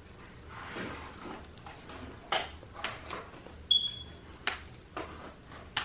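Soft rustling, then a string of about six sharp plastic clicks and snaps from a small black accessory being handled and unpacked, with one brief high ping a little before the middle.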